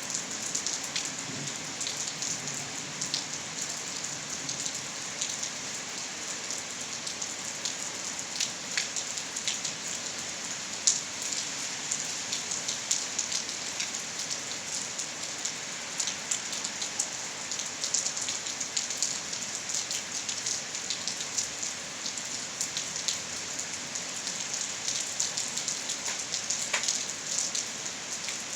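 Steady rain: a constant hiss dotted with many sharp hits of individual drops close by. One drop lands louder about eleven seconds in.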